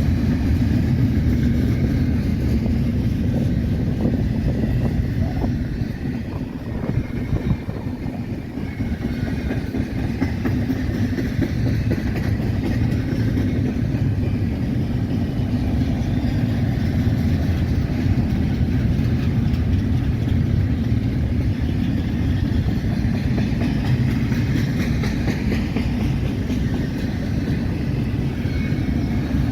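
BNSF freight train rolling past: a steady low rumble of wheels on rails, dipping briefly for a few seconds early on and then running on evenly.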